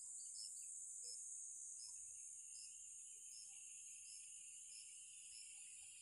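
Faint insect chorus: a steady high-pitched drone with a short chirp repeating roughly twice a second, typical of crickets in a rural tropical garden.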